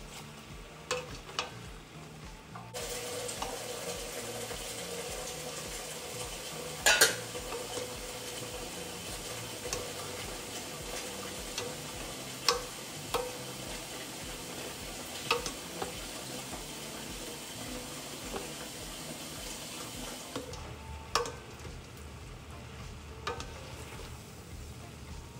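Chopped cabbage frying in bacon grease and butter, sizzling steadily, with a utensil knocking and scraping against the pan as it is stirred. The sizzle grows louder a few seconds in and drops back near the end.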